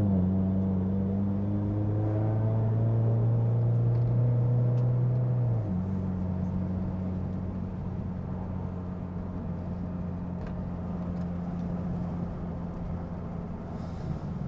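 Turbocharged Scion FR-S's flat-four engine running steadily while driving. About six seconds in, the engine note changes and gets a little quieter, as when easing off the throttle.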